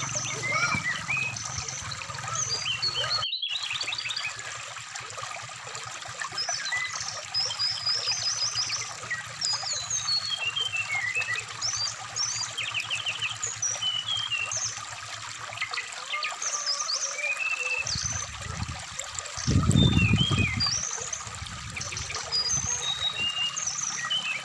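Brown-chested jungle flycatcher (SRDC) song, a busy run of short varied chirps and quick trills, over the steady trickle of a rocky stream. The sound cuts out for a split second about three seconds in, and a louder low rush of water comes about twenty seconds in.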